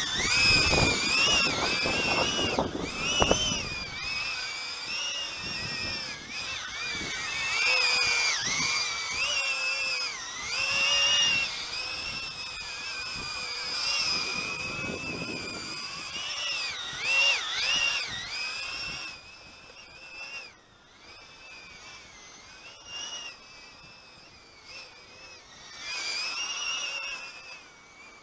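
Brushless motors and propellers of an Eachine Aurora 90 micro quadcopter, a high-pitched whine that wavers up and down in pitch as the throttle changes. Wind buffeting the microphone in the first few seconds, and the whine is quieter over the second half.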